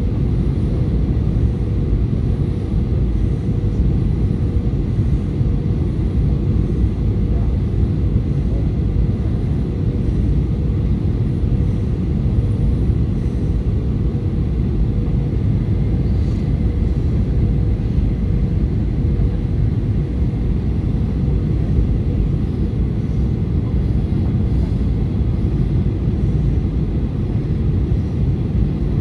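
Steady cabin noise of an airliner descending on approach: a low rumble of jet engines and rushing air, with a thin steady hum running through it.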